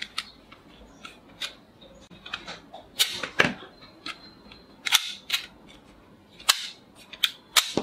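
Plastic toy revolver being cocked and fired: a series of sharp plastic clicks and snaps, the loudest about three, five and six and a half seconds in, as its spring shoots out soft-tipped toy darts.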